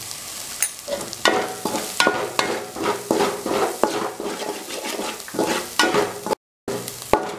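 Crushed turkey berries frying in sesame oil with a steady sizzle while a perforated metal skimmer stirs them, scraping and knocking against the metal pot in quick, irregular strokes. The sound cuts out for a moment near the end.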